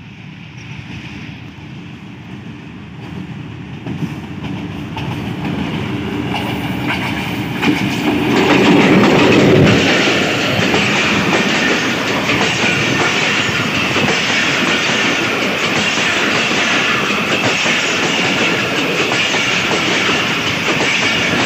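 Passenger express train hauled by a Pakistan Railways HBU-20 diesel-electric locomotive, approaching and passing close by. The sound grows steadily, is loudest as the locomotive goes by about eight to ten seconds in, then the coaches roll past with a steady clickety-clack of wheels over the rail joints.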